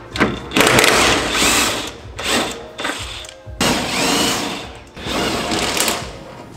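Cordless impact wrench hammering in several bursts of a second or so, undoing the rear suspension bolts on a Honda Integra.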